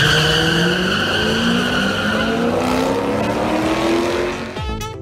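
Drag-racing cars accelerating hard down the strip from the launch, the engine note climbing steadily in pitch for about four seconds, with a high tire squeal over the first couple of seconds.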